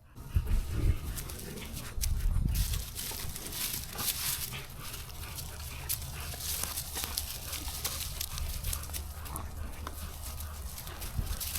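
American Bully dogs moving about and scuffling, with many short scrapes and clicks over a steady low rumble.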